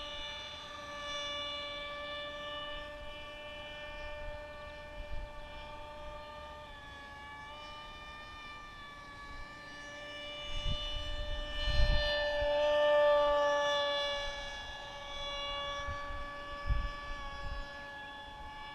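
Whine of a small RC model's 2200kv brushless electric motor and APC propeller in flight, a steady tone that drifts a little in pitch and grows louder around the middle as the model passes closer. Gusts of wind rumble on the microphone at times.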